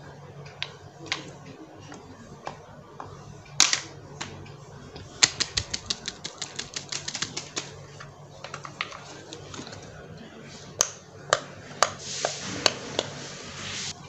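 Silicone pop-it fidget toy's bubbles being pressed with the fingers: a fast, even run of small pops, about eight a second, for a couple of seconds, with scattered single pops before it. Near the end come a few louder clicks and a brief scrape as the toy and paper cards are handled.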